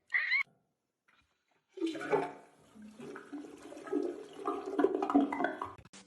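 A brief high-pitched sound, then water rushing and gurgling for about four seconds, starting about two seconds in.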